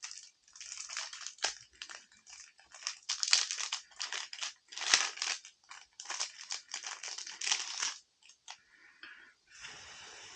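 Irregular crinkling and crackling handling noises as a replacement Pixel 6 battery is test-fitted into the phone, in a quick run of short bursts of varying loudness.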